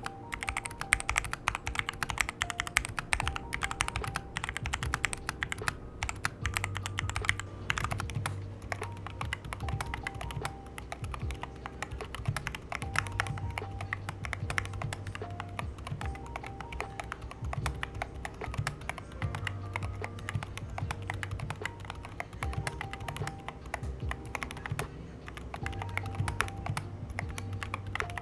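Fast, continuous typing on a Machenike K500-B61 mechanical keyboard with brown switches, fitted with thick PBT XDA-profile keycaps and O-rings that damp the keystrokes. Background music plays underneath.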